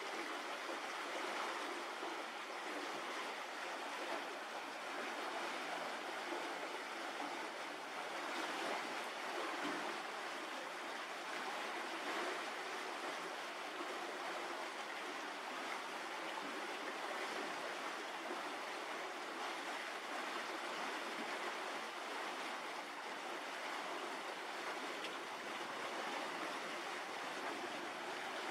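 Steady, even rushing noise like running water, with no distinct events.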